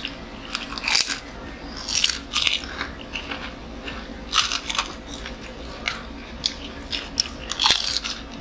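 Close-up crunchy bites and chewing of crispy fried chicken, a string of irregular crackling crunches with the loudest near the start, around the middle and near the end.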